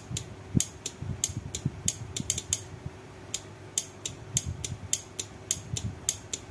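12 V 30 A six-pin automotive relay clicking repeatedly, about three sharp clicks a second at an uneven pace, as its coil is switched on and off through alligator clips on pins 2 and 4. The coil is connected with reversed polarity, which the relay does not mind.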